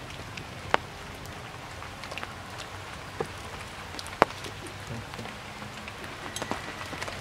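Rain falling on tree leaves: a steady hiss of rain, with occasional sharp strikes of single heavy drops, the loudest about four seconds in.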